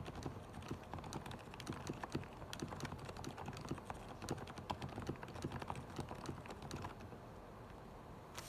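Typing on a Corsair Strafe mechanical keyboard with Cherry MX Silent Red switches lubed with Krytox 205g0, with lubed stabilizers and shelf liner in the case: fast, irregular keystrokes. The typing stops about seven seconds in, with one last keystroke near the end.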